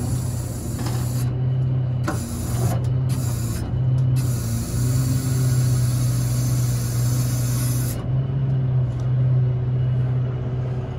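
Engine running steadily while the hydraulics raise and lower a Trail King lowboy's detachable gooseneck. Over it come several spells of loud hissing, the longest about four seconds, each cutting off sharply.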